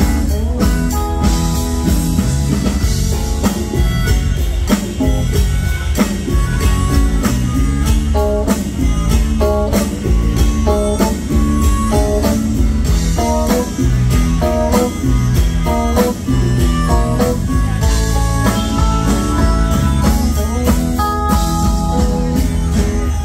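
Live rock band playing an instrumental passage, amplified through the PA, with a melodica playing a melody of short held notes over the drums and band.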